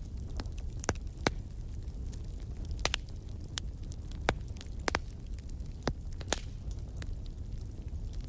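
Wood fire crackling, with sharp irregular pops from the burning wood over a low steady rumble.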